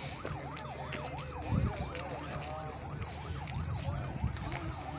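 Emergency vehicle siren on a fast yelp, its pitch sweeping up and down about three times a second, over a low rumble. A low bump about a second and a half in is the loudest moment.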